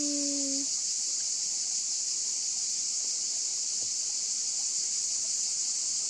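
Steady, high-pitched chorus of insects buzzing without a break in summer woodland.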